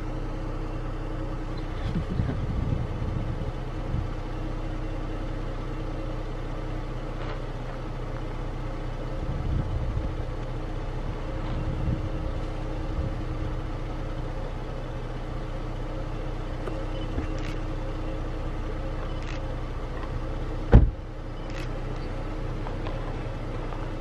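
Vehicle engine idling steadily, a constant low hum, with a single sharp knock near the end.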